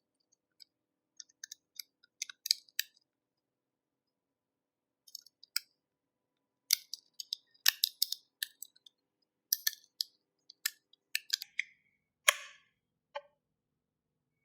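Irregular sharp clicks, snaps and light crunches of a power bank's plastic casing and small parts being pried and pulled apart, in uneven clusters with a short pause a few seconds in.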